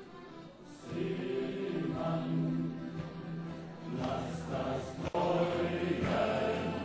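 Men's group singing a sailor song live, accompanied by accordion and guitar; the music gets louder about a second in.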